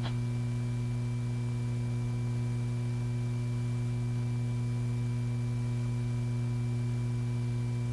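Steady electrical hum with a light hiss, unchanging throughout. No handling or mechanical sounds are heard.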